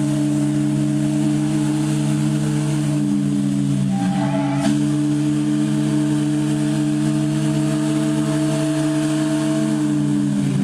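A ship's steam whistle blowing one long, steady blast, a chord of several deep tones, with a brief break about halfway through.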